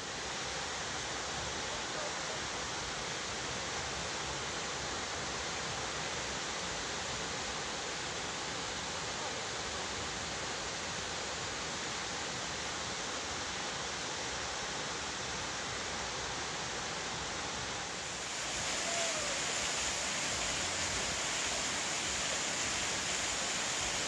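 Steady rush of a large waterfall plunging into its pool, growing a little louder and brighter about three-quarters of the way through.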